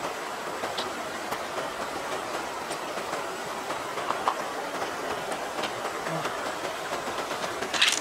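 Steady rushing noise of running water, with a few faint wet clicks as fingers handle an opened freshwater mussel's flesh and shell. A louder cluster of clicks comes near the end.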